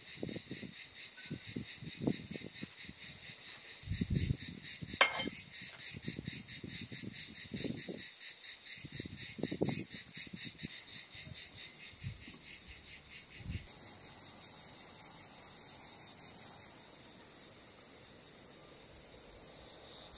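Insects chirping in a steady, fast, even pulse, a rural summer chorus. Soft low knocks and rustles come and go beneath it, with one sharp click about five seconds in. The chorus thins near the end.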